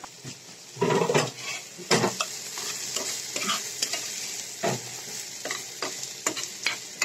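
Metal spatula stirring and scraping food frying in a pan, in irregular strokes about once a second, over a steady sizzle of hot oil.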